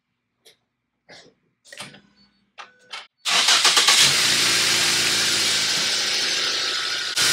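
A few light knocks and clicks, then about three seconds in a small minivan's engine cranks briefly, catches and runs steadily. It is a strong start on a seven-year-old lead-acid battery that had been desulfated with a stick welder.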